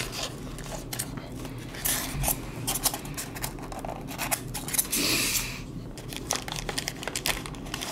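Cardboard toy box being opened by hand: flaps pried open and an inner paperboard carton handled, with scraping, rustling and small clicks. The longest scrape comes about five seconds in.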